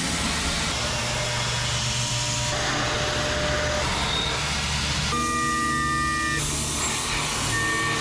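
CNC vertical mill (Emco Mill 1200) machining an aluminum block with an end mill: steady cutting and spindle noise that changes abruptly every second or two, with a high, steady cutting whine about five seconds in and again near the end.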